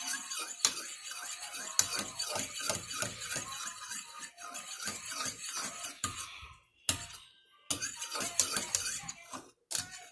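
A spoon scraping and clinking against a bowl in quick repeated strokes as a slime mixture is stirred. After about six seconds the stirring stops and only a few separate clicks follow.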